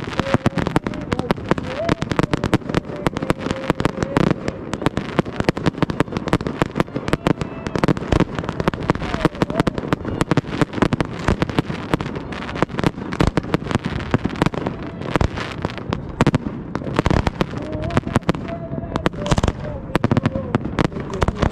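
Aerial fireworks bursting in rapid, dense succession, with sharp bangs and crackling several times a second throughout. A live mariachi voice and instruments carry faintly underneath.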